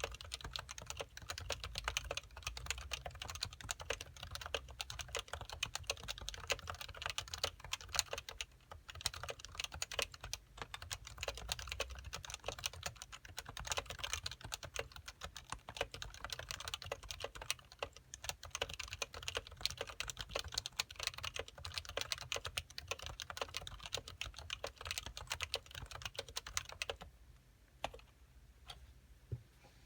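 Continuous typing on a Happy Hacking Keyboard Professional with stock, unsilenced 45 g Topre electrostatic capacitive switches: a dense stream of keystrokes. The typing stops about 27 seconds in, and a few stray keystrokes follow.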